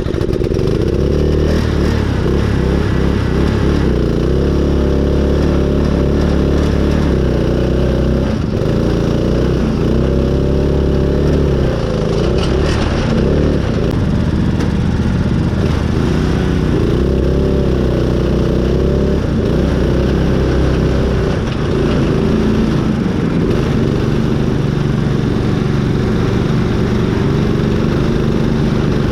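Riding lawn mower engine on a modified mud mower, running hard and revving up and down repeatedly under load.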